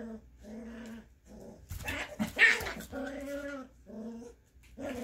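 Scottish terrier mother and her six-week-old puppy growling in a string of short, pitched growls, with one louder, sharp yap about two and a half seconds in. The growling could be rough play or the mother disciplining the pup.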